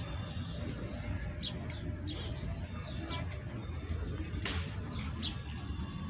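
Sparrows chirping in short, scattered high notes over a steady low background rumble, with one sharp click about four and a half seconds in.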